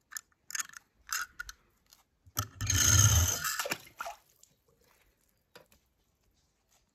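Water splashing: a few short splashes and drips, then a bigger splash about two and a half seconds in, lasting about a second and a half.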